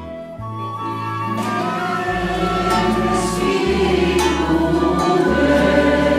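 A choir singing over instrumental backing, with held bass notes that change every second or so. It grows louder about a second in.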